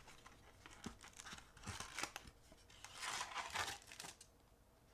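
Clear plastic wrap around a Topps baseball card pack crinkling and tearing as it is handled, in uneven crackly bursts with a few clicks, loudest about three seconds in.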